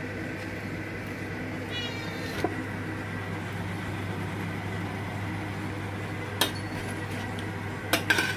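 A domestic cat meows once, briefly, about two seconds in, begging for the roast chicken. A few sharp clinks of a metal spoon and fork against the roasting tray and plate follow, over a steady low hum.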